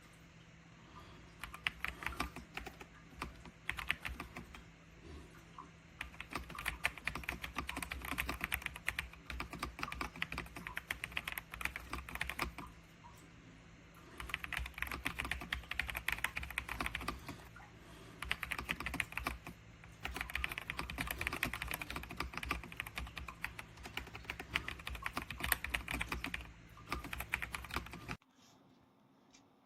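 Typing on a mechanical keyboard: rapid key clicks in bursts of several seconds separated by short pauses, stopping abruptly near the end.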